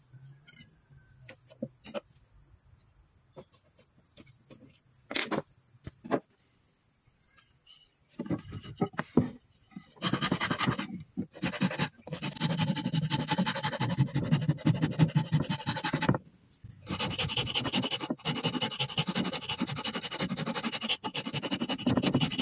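Hand file rasping the wooden handle of a homemade speargun stock: rapid back-and-forth strokes start about eight seconds in, stop briefly near the middle, then go on. Before that, only a few light taps and clicks.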